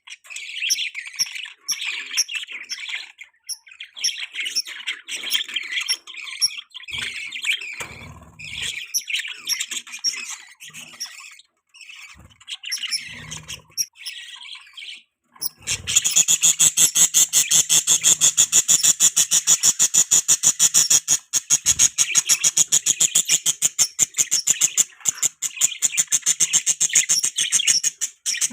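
Budgies chirping and warbling in broken phrases; about halfway through this gives way to a louder, fast, steady run of rapid repeated chirps.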